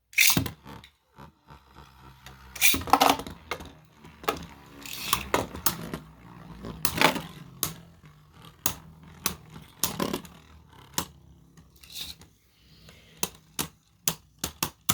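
Two Beyblade spinning tops, one on a 3D-printed driver, launched into a plastic stadium: a loud snap at the launch, then a steady low whir under irregular clacks and scrapes as they collide, with a quickening run of clicks near the end.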